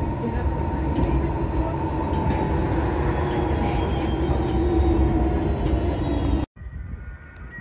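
Running noise heard inside a moving rail car: a steady rumble with a held motor whine. It cuts off abruptly near the end to a much quieter background.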